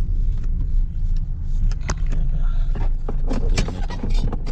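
Steady low rumble of a Hyundai car running, heard from inside the cabin, with a few brief knocks and rustles about two seconds in and again near three and a half seconds.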